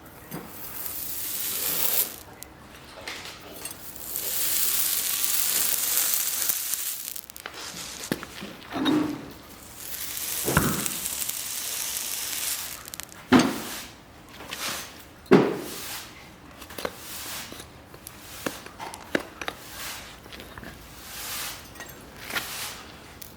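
Farrier working on a horse's hoof: long hissing scrapes, several a few seconds each, broken by a few sharp knocks about halfway through and lighter clicks after.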